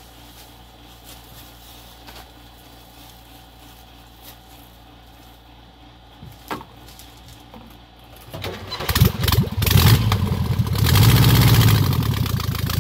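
A single click about six and a half seconds in, then the engine of a small utility buggy starts about eight seconds in, revs unevenly for a moment and settles into a steady run.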